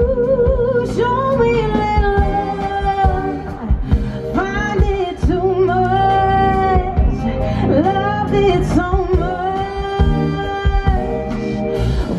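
Woman singing with a live band: long held notes that waver and slide in pitch over the band's accompaniment.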